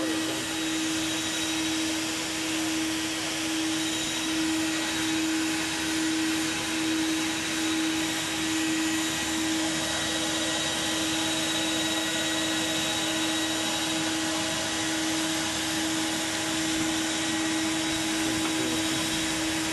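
Electric air blower running steadily with a constant hum, pushing air through a hose into the pontoons of an inflatable boat lift.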